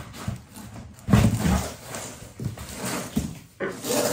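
Cardboard box and its packing being handled and moved on a counter: rustling and scraping with irregular knocks, the loudest about a second in.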